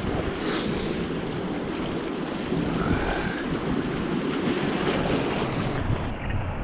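Wind buffeting the microphone over small sea waves washing against shoreline rocks, a steady rushing noise.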